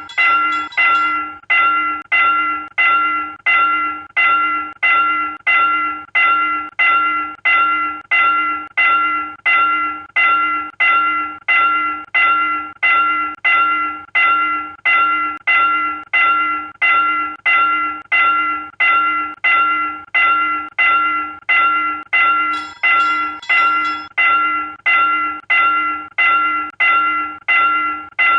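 South Korean railroad crossing warning bell ringing steadily, about one and a half strikes a second, each ring dying away before the next.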